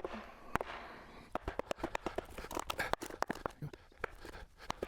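Cedar wood splitting apart along the grain, its fibres crackling and snapping in an irregular run of sharp clicks, with a sharper crack about half a second in.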